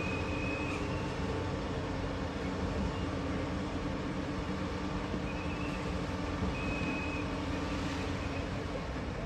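Steady outdoor din of street traffic and construction machinery, with a few faint short high-pitched tones.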